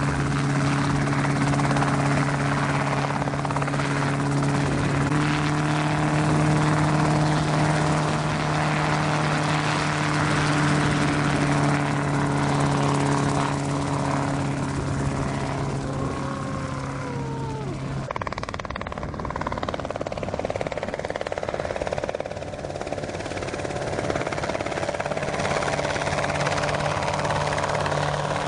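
RotorWay Exec 162F light helicopter in flight, its engine and two-bladed rotor making a steady, loud droning hum. The hum steps up in pitch about five seconds in and glides down in pitch around seventeen seconds in. It then gives way to a rushing noise for several seconds before the drone comes back near the end.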